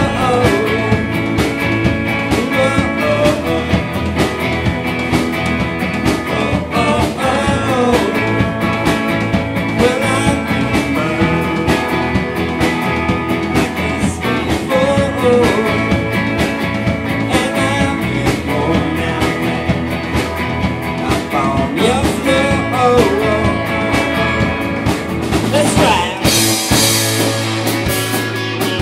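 Live rock band playing loud, with drums, bass and guitar and a wavering lead line; about 26 seconds in, a cymbal wash rings over a held low bass note.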